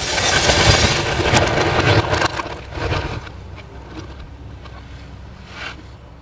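Excavator demolishing a wood-frame house: timber splintering and debris crashing loudly for the first three seconds as the roof is pulled down, then the machine's diesel engine running under a quieter rumble, with one more crack near the end.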